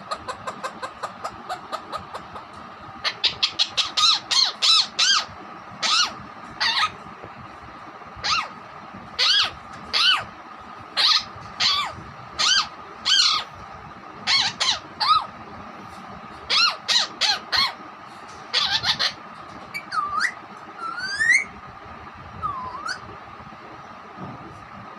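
Alexandrine parakeet calling. It opens with a quick run of short clipped notes, then gives loud harsh calls in clusters of two to four. Near the end come a few whistled notes that sweep up and down in pitch.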